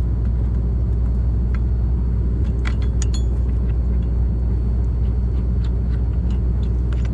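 Engine running with a steady low hum, overlaid by a few light metallic clicks and clinks from handling sickle guard and knife parts.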